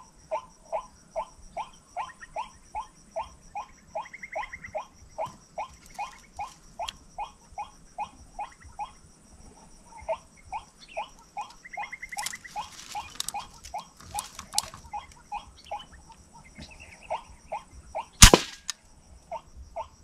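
White-breasted waterhen (ruak-ruak) calling in a quick, regular series of about three calls a second, with short pauses, over a steady high insect whine. Near the end, one sharp crack from a Hummer X7 air rifle firing.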